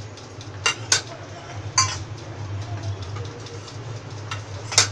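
A few sharp clinks and knocks of steel kitchenware being handled around a steel mixer-grinder jar, four in all with a long gap before the last, over a steady low hum.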